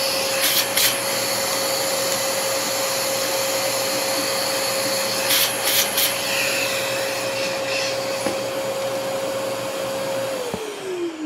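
Shop vacuum running steadily through its hose and nozzle, sucking wood chips out of a hand-chopped mortise, with a few short clicks about half a second in and again around five to six seconds. About ten seconds in it is switched off and its motor winds down with a falling whine.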